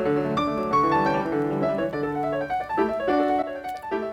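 Background piano music: a gentle melody of single notes over chords.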